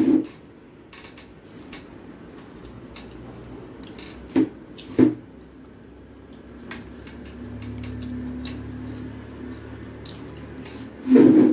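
Fingers pulling apart a piece of fried fish on a steel plate and eating it: small scattered clicks and soft squishes, with four dull thumps, twice in quick succession about four to five seconds in and the loudest near the end.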